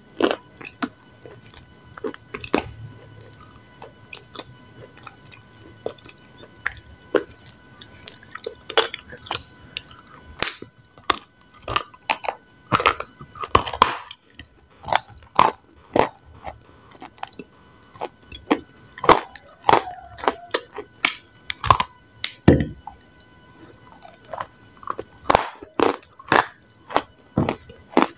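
Close-miked biting and chewing of a dry, chalky white lump, with crisp irregular crunches and crumbling, some from the lump being broken in a plate of powder.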